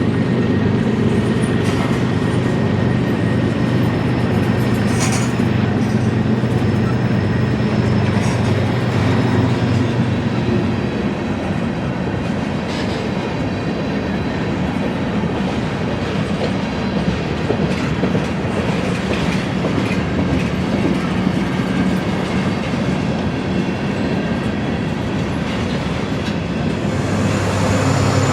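Diesel freight train passing: locomotive engines droning for the first ten seconds or so, then the cars rolling by with wheels clicking over the rail joints. A locomotive engine drones again near the end.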